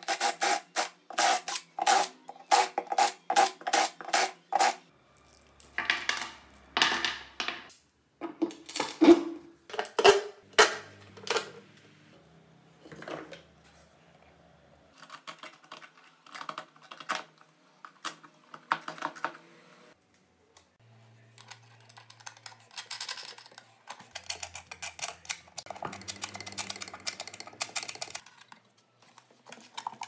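Metal hardware being handled: clinks, knocks and rattles of bolts, washers and aluminium brackets as a motor is fitted and bolted down. It opens with a run of evenly spaced clicks, about two or three a second, then louder scattered clanks, then softer irregular clicks.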